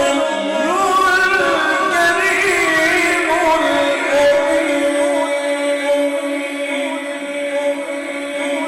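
A man singing unaccompanied Islamic devotional verse (naat), drawing out long ornamented notes that waver up and down, then settling into a long steady held note about halfway through.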